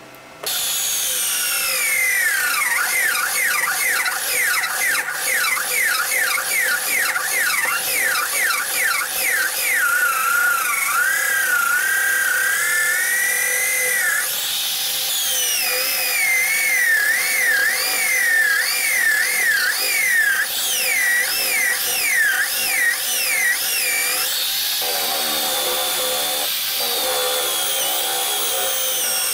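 Electric drill mounted in a drill stand, boring holes into wood. The motor's whine rises and falls over and over as the bit loads up and frees in the cut.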